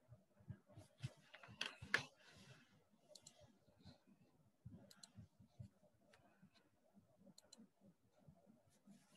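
Faint scattered clicks, with a brief cluster of clicks and rustling about one to two seconds in, then a few isolated ticks in a quiet room.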